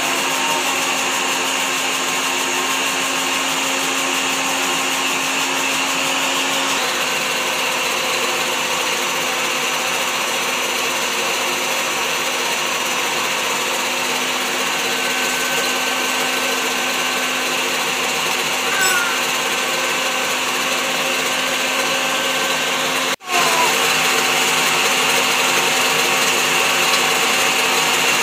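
Sayona countertop juicer-blender motor running steadily, whipping egg, lemon juice and oil into mayonnaise. Its note shifts slightly lower about seven seconds in, and about 23 seconds in the sound breaks for an instant and carries on a little louder.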